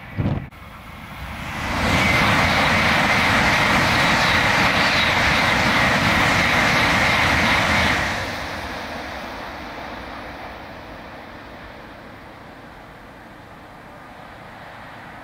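N700-series Shinkansen passing at high speed: a rushing noise that swells over the first two seconds, stays loud for about six seconds, then fades away as the train recedes. A brief thump just after the start.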